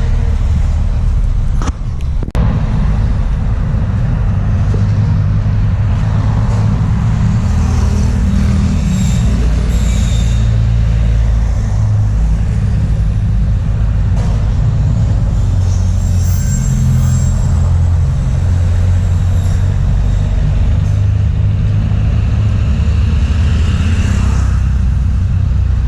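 Roadside traffic noise: a loud, steady low rumble from passing vehicles, with two brief clicks about two seconds in.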